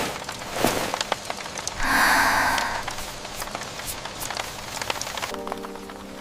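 Rain and campfire ambience, with scattered small sharp cracks and drips. A breathy, sigh-like sound comes about two seconds in. Soft held music notes begin near the end.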